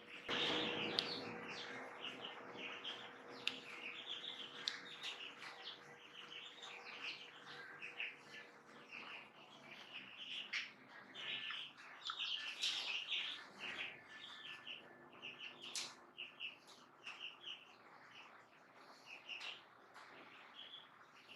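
Small birds chirping in quick short calls again and again, with a few light clicks and a faint steady hum underneath.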